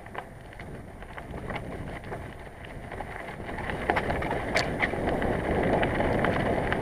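Bicycle being ridden over a rough path: tyre noise and wind on the microphone, with scattered rattles and clicks that grow louder and more frequent over the second half.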